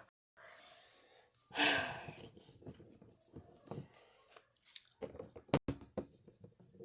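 A voice makes a loud, breathy wheezing gasp about a second and a half in, acting out a character in distress. Light taps follow, with one sharp click near the end.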